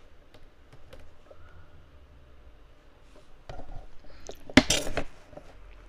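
A few light computer keyboard taps and mouse clicks, then a louder, sharper clatter about four and a half seconds in.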